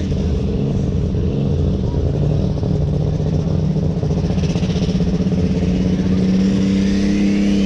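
A lightweight superstock pulling tractor's engine running loud and steady at high revs, with a high whine climbing in pitch near the end.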